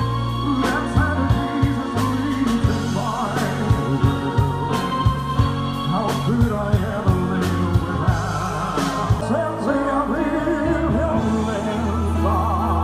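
Live band music with singing over a drum beat and bass; the drums drop out about ten seconds in, leaving held bass notes under the melody.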